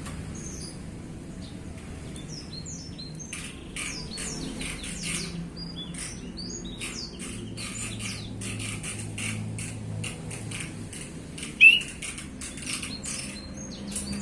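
Male chestnut-capped thrush (anis kembang) singing a fast, continuous run of short chirps, clicks and high squeaky notes. The song starts a few seconds in, and one louder, lower note comes about two-thirds of the way through.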